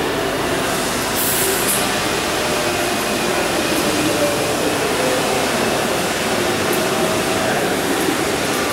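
Steady machinery noise of an industrial workshop: a continuous, even hiss and hum with no distinct strokes or events.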